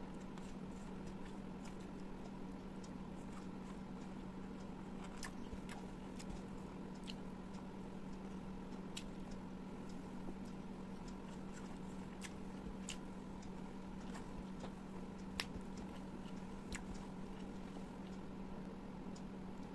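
Close-miked chewing and biting of food, with scattered small wet mouth clicks and one sharper click about fifteen seconds in, over a steady low hum.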